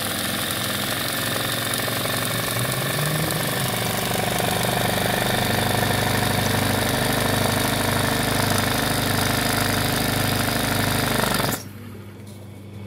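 Sewing machine stitching white embroidery lettering into a hooped fabric sash, running fast and steadily, then stopping abruptly about a second before the end.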